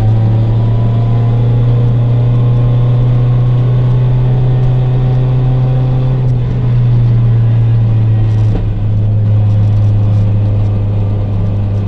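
Rally car engine heard from inside the cabin, running under light load with a steady droning note; the pitch steps down slightly about eight and a half seconds in.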